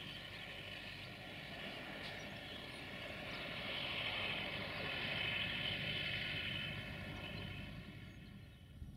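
UTB Universal 650 M tractor's diesel engine running as it drives past, growing louder toward the middle and fading away near the end.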